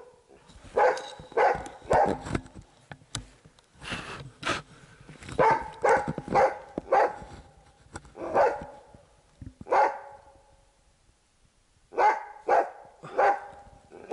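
Hunting dog barking repeatedly in short runs of barks, baying at a sable treed above it. The barking breaks off for about a second and a half near the end, then starts again.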